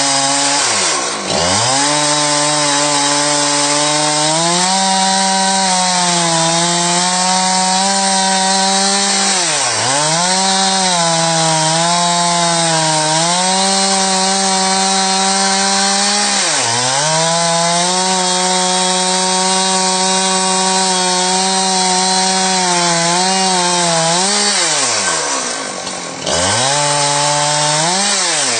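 Gas chainsaw in a chainsaw mill running at high speed while ripping lengthwise along a log on the first, bark-removing cut. The engine note holds mostly steady under load. Several times it drops sharply and climbs straight back up.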